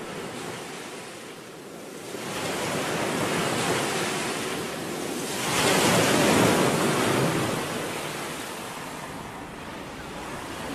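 Ocean surf breaking on a sandy beach, the wash swelling about two seconds in and more strongly around six seconds before easing off.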